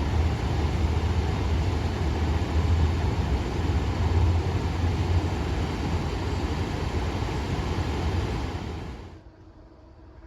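Loud, steady rumbling noise, heaviest in the low end, fading out about nine seconds in.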